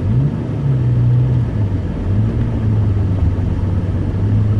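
Ventrac compact tractor's engine running as it is manoeuvred. Its pitch rises right at the start, holds higher for about a second, then settles to a lower, steady note.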